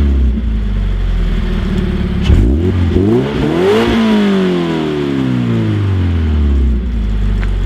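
Scion FR-S flat-four boxer engine breathing through a MagnaFlow cat-back exhaust, revved from idle. The revs settle to idle, then about two seconds in one rev climbs, peaks near four seconds and falls back to a steady idle.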